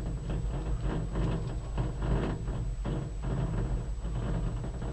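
Steady low hum and rumble inside a gondola cabin climbing its cable, with uneven knocks and rattles.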